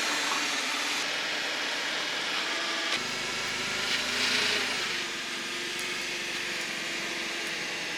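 Wooden slide-out deck sliding into its steel channel on the truck, a steady mechanical scraping and whirring that goes on without a break.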